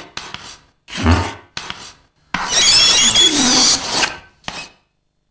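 Chalk scraping on a blackboard while drawing: a run of short strokes and one long stroke of about two seconds in the middle, which squeaks with a high wavering tone.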